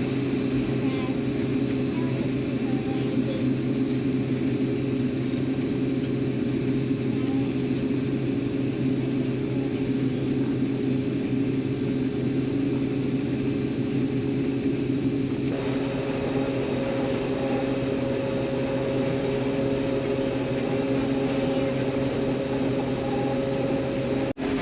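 Combine harvester running steadily in soybeans: a constant mechanical drone with a steady hum, its tone shifting slightly about two-thirds of the way through.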